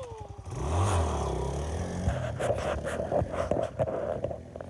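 ATV engine revving and accelerating away, its pitch rising and falling, loudest about a second in and then slowly easing off, with clattering and scraping over the second half.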